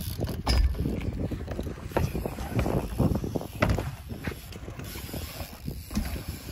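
BMX bike riding a small wooden ramp: tyres rumbling over the wood, with many irregular knocks and clicks from the bike.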